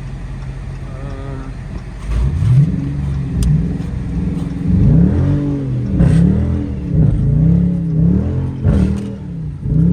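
Dodge Charger R/T's 5.7-litre Hemi V8 running steadily, then from about two seconds in revving up sharply, its revs rising and falling again and again, about once a second.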